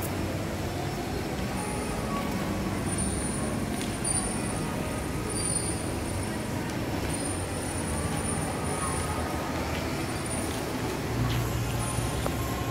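Steady low rumble of shopping-mall background noise, with no distinct events.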